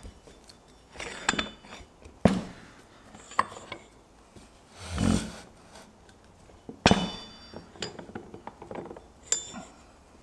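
Steel sprockets and flange bearings clinking and knocking against a steel shaft as they are slid along it and set in place. There are a few sharp metallic knocks with a short ring, the loudest about two seconds in and near seven seconds, plus a brief rushing noise midway.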